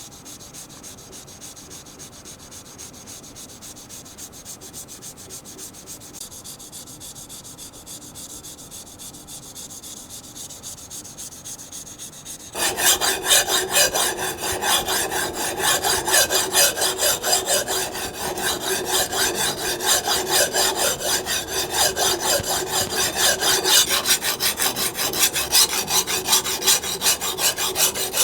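Steel kitchen knife blade ground back and forth on a coarse sharpening abrasive in repeated rasping strokes, to thin the blade and grind out the edge. The rubbing is fainter at first and turns sharply louder about twelve seconds in.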